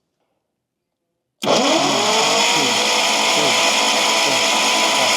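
Starter motor cranking the 1953 Kaiser's Continental 226 six-cylinder engine, starting abruptly about a second and a half in; its whine rises as it spins up, then holds steady over slow, even pulses. The compression tester is in cylinder one, which reads nothing, a sign of a stuck valve.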